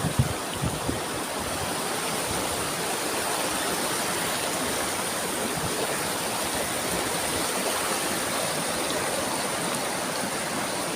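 Steady rush of a small waterfall and fast river current, with a few low bumps in the first second.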